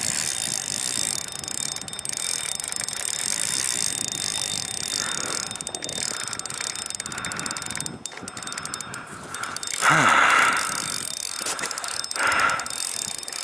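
Spinning reel's drag clicking and buzzing as a big channel catfish runs and strips line. A louder burst of noise comes about ten seconds in.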